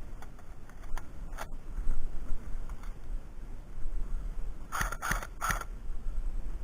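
Three quick sharp shots from an airsoft gun about five seconds in, after a couple of fainter clicks, over low wind rumble on the microphone.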